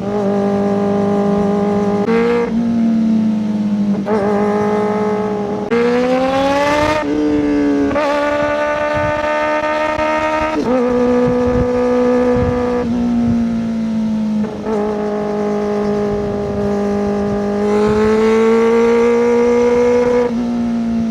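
Kawasaki ZX-4RR's 399 cc inline-four engine running at high revs through a Coffman's slip-on exhaust, its pitch rising and falling with the throttle, with a quick climb about six seconds in and several short breaks in the note.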